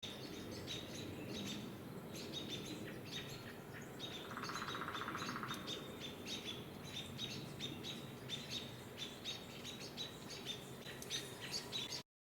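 Wild songbirds chirping, many short high chirps repeated all through, with a rapid buzzy rattle lasting about a second and a half near the middle.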